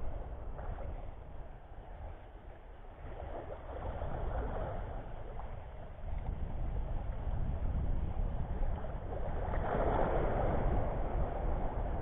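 Wind rumbling on the microphone with small sea waves washing at the shoreline; the wash swells a few seconds in and is loudest near the end.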